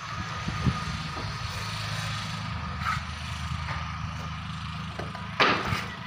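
A steady low engine hum with a faint steady high whine, a few light knocks, and one loud short noise about five and a half seconds in.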